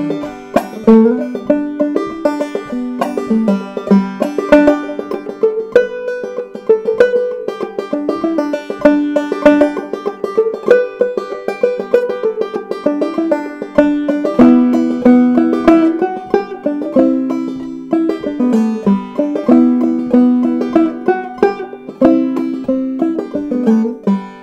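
Five-string banjo played clawhammer style: an old-time tune in G, with a steady rhythm of down-picked melody notes and brushed strums against the ringing drone string.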